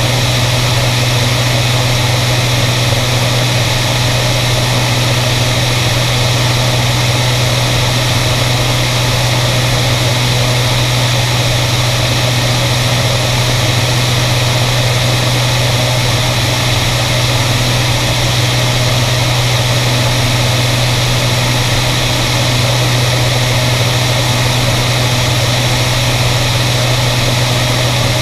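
Beriev Be-103 amphibian's twin piston engines and propellers running in steady flight, a constant low drone with a heavy rush of wind over the outside-mounted microphone.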